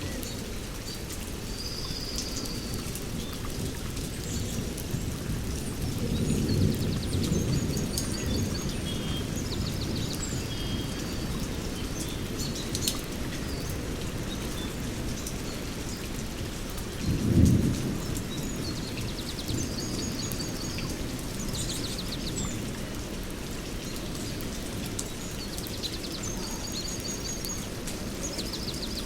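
Steady heavy rain with two low rolls of thunder, one about six seconds in and a shorter, louder one around seventeen seconds. Birds chirp and trill through the rain.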